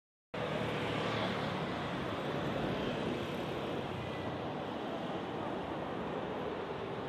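Town street traffic: cars, a delivery van and a motorbike passing, a steady hum of engines and tyres. It starts just after a split second of silence.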